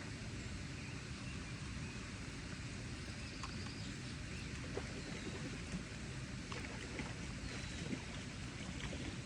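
Steady outdoor rushing noise, strongest low down, with scattered light clicks and a few faint high chirps.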